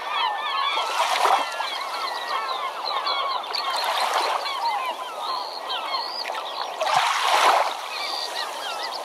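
A large flock of birds calling, a dense chatter of short rising and falling calls, over three swells of rushing noise, the loudest about seven seconds in.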